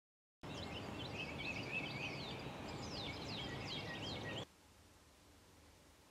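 Outdoor ambience of small birds chirping, many quick falling chirps over a steady background hiss, that cuts off abruptly about four and a half seconds in to faint room tone.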